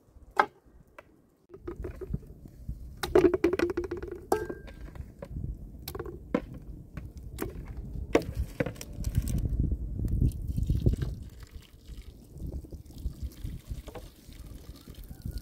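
Raw chicken pieces in an aluminium pot being washed: water splashing and being poured in from a kettle near the end. Scattered knocks of the pot and bowl, with a ringing metallic clatter a few seconds in.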